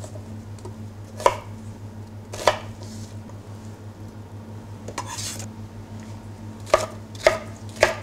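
Chef's knife chopping vegetables on a plastic cutting board: two single sharp chops, a short scraping rustle about five seconds in as the chopped onion is gathered into a glass bowl, then three quick chops near the end. A steady low hum runs underneath.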